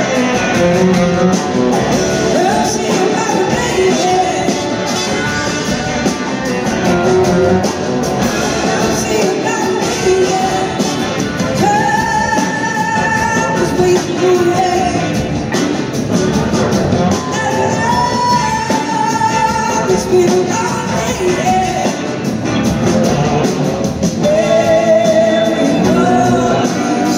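A live rock-soul band performing with sung vocals and backing singers over electric guitars, bass and drums, recorded from the audience.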